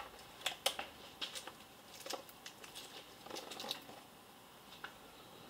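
Faint handling noises: a scattering of light clicks and taps, with a short cluster of rustling and tapping about three and a half seconds in.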